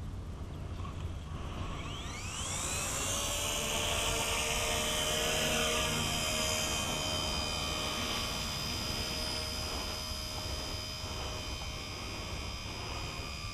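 Electric motor and rotors of a V931 radio-controlled model helicopter spooling up with a rising whine about two seconds in, then holding a steady high-pitched whine at flying speed.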